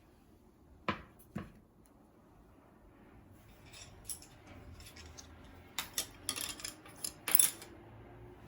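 Small hard objects being handled: two sharp clicks about a second in, then a run of clicks, clinks and scrapes, loudest near the end, like dishes or utensils being moved.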